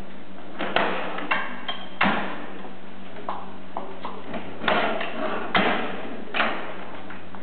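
Sharp metallic knocks and clicks as the chrome folding legs of a rollaway trestle table are swung in and latched against the upright tabletop, about eight separate knocks with pauses between them, over a steady low hum.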